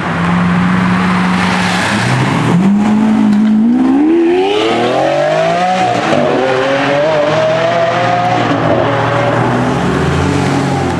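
Supercar engine running at a steady low note, then revving hard with the pitch climbing steeply for a few seconds and holding high, before easing back lower near the end.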